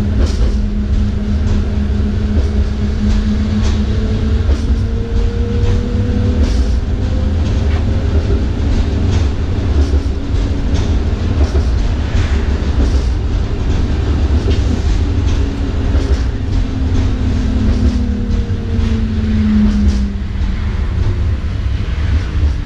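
Inside a Schindler Waggon AG Be 4/6 tram under way: a steady rumble of wheels on the rails with scattered clicks over the track. A motor whine rises in pitch about four seconds in and falls again near the end.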